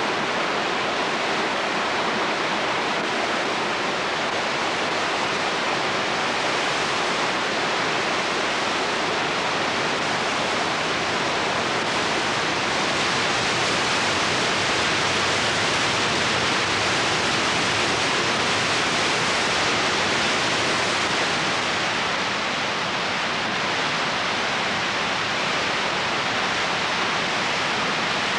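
The roar of Victoria Falls: a steady rushing of falling water, a little louder through the middle.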